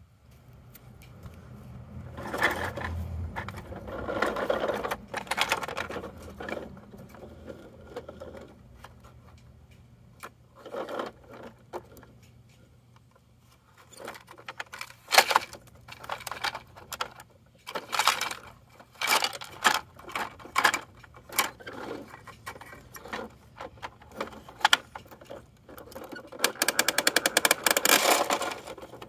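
Plastic toy garbage truck being worked by hand: a few seconds of continuous rough noise near the start, then scattered plastic clicks and knocks, and a fast rattle near the end as the front arms raise a bin over the hopper.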